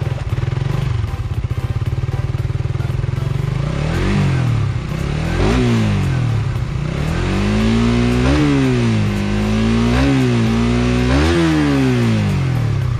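Suzuki Raider 150 Fi's single-cylinder four-stroke engine, through its stock muffler, idling and then revved with the UMA quick throttle. After two short blips it is held higher with three more peaks, then falls back toward idle near the end. A small twist of the quick throttle sends it to high revs at once.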